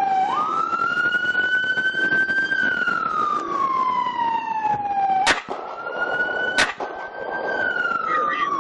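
Police car siren wailing, its pitch slowly rising and falling in long sweeps. Two sharp cracks cut through it, about a second and a half apart, a little past the middle.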